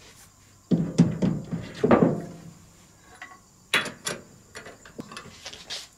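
Heavy steel six-jaw lathe chuck being pushed onto the lathe's backing plate: a run of metal clunks with some ringing, then a few sharp clicks of a wrench on its mounting bolts about four seconds in.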